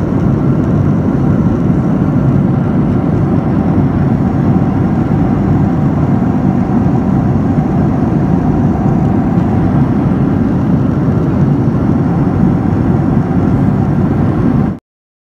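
Steady, deep cabin noise of a jet airliner in cruise, heard at a window seat over the wing: an even, unbroken sound of engines and airflow. It cuts off suddenly near the end.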